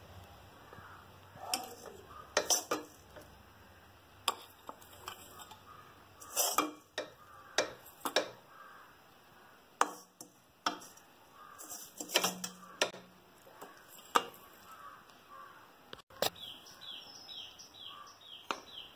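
A spoon scraping dry-roasted grated coconut out of a metal pan and knocking it into a stainless steel mixer-grinder jar, giving scattered clinks and scrapes of metal on metal.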